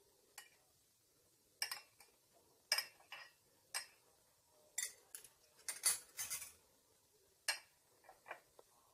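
Metal spoons clinking and scraping against a white dish as powder and yogurt are spooned in and stirred: about a dozen short, irregular clinks.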